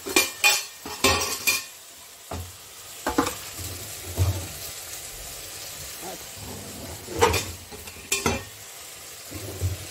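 Stainless steel lid and spoon clinking and clattering as they are handled in a utensil drawer, a run of sharp metallic knocks in the first second and a half and a few more later. Under them, onion-tomato masala sizzles steadily as it fries in oil in a kadhai.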